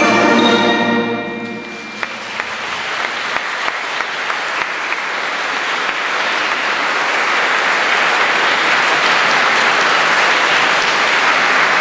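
A concert wind band's final chord rings out and ends about a second and a half in. Audience applause then starts and builds to steady, full clapping.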